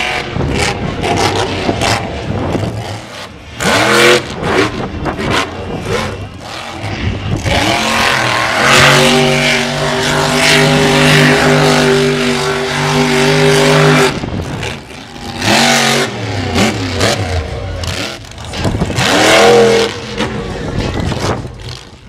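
Monster truck engine revving hard, its pitch rising and falling in repeated surges, with a stretch of about six seconds held at high revs in the middle.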